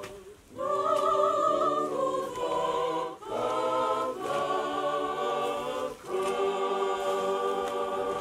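A choir singing held chords with a slight vibrato, in phrases separated by short breaths: about half a second in, just after three seconds, and at six seconds.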